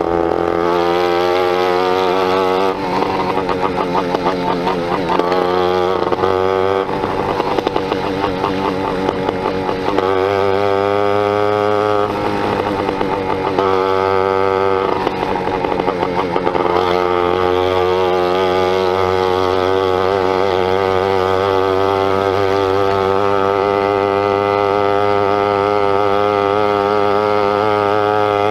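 Two-stroke 80cc motorized-bicycle kit engine running on the move, loud and rasping through a snapped exhaust. Its revs rise and fall through the first half, with a couple of climbs in pitch, then hold steady for the last ten seconds or so.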